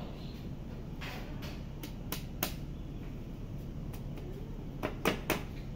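Wooden parts of an A-frame easel knocking and clicking as its crossbars and legs are handled and fitted together: a few light knocks in the first half, then three sharper ones near the end, over a steady low hum.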